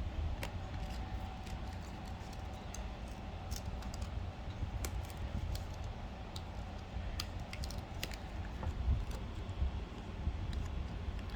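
Trading cards being handled and flicked through: scattered small clicks and snaps of card stock, over a steady low rumble.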